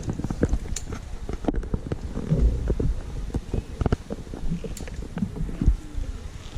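Safety-harness gear handled close to the microphone: irregular clicks and knocks of clips and carabiners being clipped onto the course's safety line, over a low rumbling handling noise.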